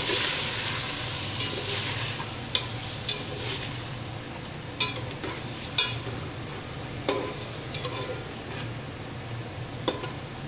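Chicken pieces frying in hot oil with yogurt just added, sizzling as they are stirred with a slotted steel spoon. The sizzle is strongest at the start and slowly dies down. The spoon clinks sharply against the metal pot about five times.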